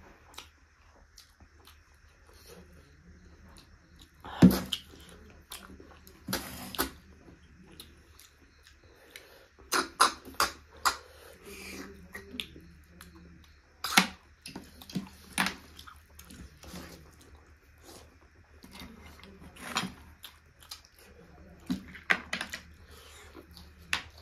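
Close-up eating of snail curry with the snails still in their shells: chewing and sucking, broken by many scattered sharp clicks and knocks, the loudest about four seconds in and again near the middle.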